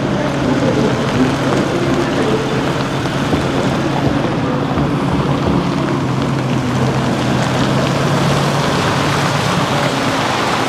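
Diesel engines of heavy military trucks running steadily as a slow column drives past, a constant low engine hum under road and tyre noise.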